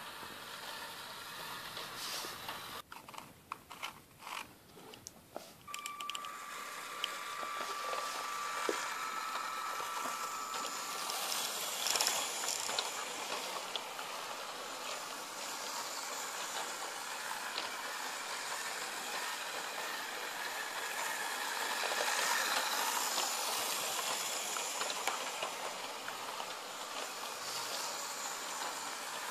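LEGO tram running on plastic LEGO track, driven by a Power Functions M-motor: a steady whirring hiss with a light wheel rattle that swells and fades as it goes round the loop. A few knocks sound about three to five seconds in.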